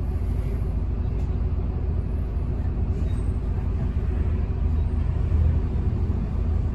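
Isuzu Erga city bus's four-cylinder diesel engine idling, a steady low rumble heard from inside the passenger cabin. A car passing alongside briefly adds to it about five seconds in.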